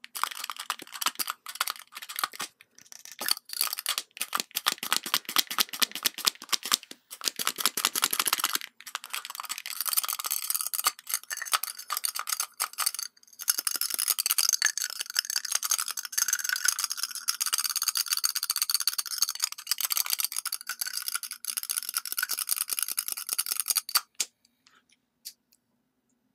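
Long fingernails rapidly tapping and scratching on a small metal lipstick case, then from about nine seconds a makeup brush swept over the microphone in a steady scratchy brushing that stops abruptly about two seconds before the end. A faint steady hum runs underneath.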